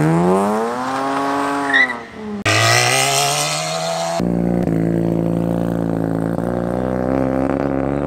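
Three cars pulling away hard in turn: a Lexus IS sedan revving up as it spins a rear tyre, then, about two and a half seconds in, a Mazda RX-7 FC's rotary engine rising in pitch as it accelerates, and from about four seconds a Mazda RX-7 FD's rotary engine pulling away with a steadier note.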